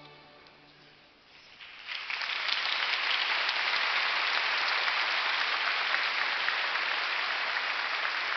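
A held musical note fades out, then a church congregation breaks into applause that swells within about half a second, just under two seconds in, and keeps going steadily.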